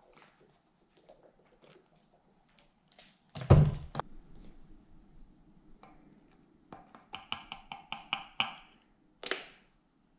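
Kitchen handling sounds on a granite counter: a loud thump about a third of the way in, then a quick run of light clicks with a short ring as a plastic scoop taps against a ceramic mug while powder is poured in.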